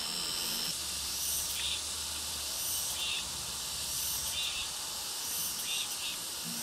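Beef and vegetables sizzling on a small charcoal grill, a steady hiss. A short high chirp repeats about every second and a half over it.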